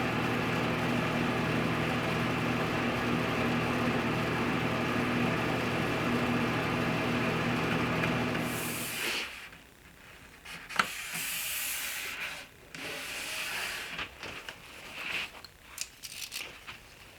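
A steady mechanical hum in the shop, cutting off suddenly about nine seconds in. It is followed by a series of short rubbing, hissing strokes and one sharp click, from work on the edge banding and contact cement.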